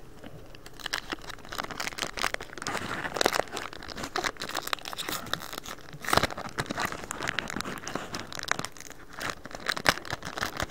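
Foil wrapper of a Pokémon trading card booster pack crinkling and tearing as it is opened by hand: dense, irregular crackles with a few louder crinkles.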